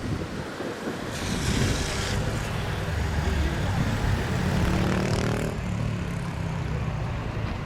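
Low, steady rumble of a Boeing 737-700's CFM56 jet engines at taxi power after landing, with a brief surge of hiss about a second in and again around five seconds in.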